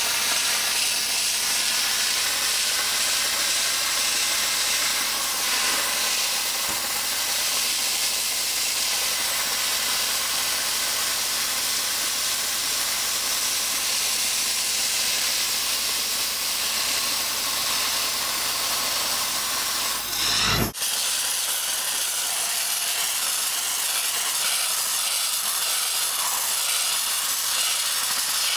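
Dry-ice (CO2) blasting gun spraying a steady, loud hiss of compressed air and ice. The hiss is broken once by a short thump about two-thirds of the way in, then carries on.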